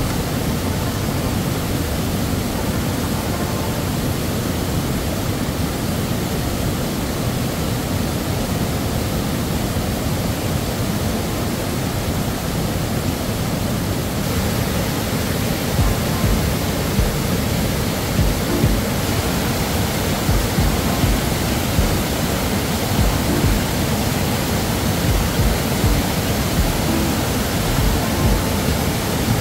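Fast mountain river rushing over boulders and through a bamboo fish weir: a steady, loud white-water rush.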